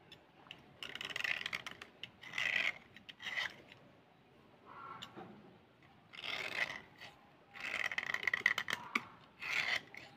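A small metal knife blade scraping along a slate pencil, shaving its surface to powder in short spells of rasping strokes with brief pauses between them.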